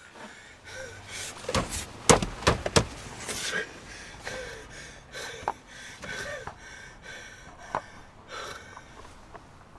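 A man sobbing and gasping in distress: ragged breaths, sniffs and short strained cries. There are a few sharp knocks about two to three seconds in.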